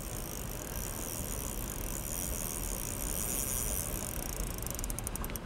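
Spinning reel's drag giving line to a hooked large trout: a fast, steady ratchet whir that slows into separate clicks near the end.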